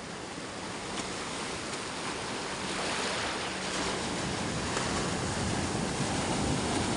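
Tohatsu 9.8 hp outboard motor running under a steady rush of wind and sea, growing gradually louder.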